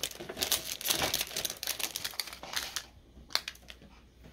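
Plastic dehydrated-vegetable packet crinkling as it is pulled out of an instant ramen cup, a quick run of small rustles and ticks. A single sharp click a little after three seconds in, then it goes quieter.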